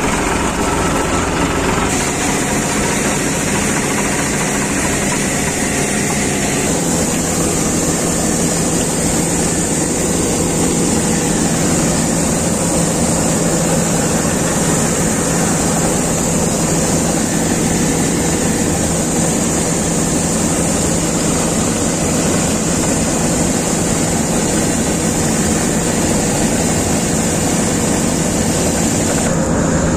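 Combine harvester running close by while its unloading auger pours wheat into a tractor trolley: a steady engine note under an even, high hiss that stops just before the end.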